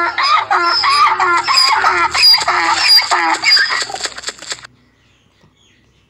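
Donkey braying: a long run of quickly repeated calls that stops a little after four seconds in.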